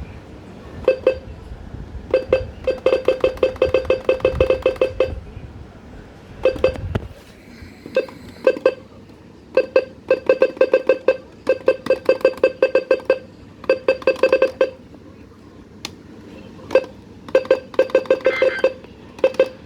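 Rapid electronic beeps, all at one pitch, in irregular runs: some in pairs, some running on for a few seconds at about ten beeps a second.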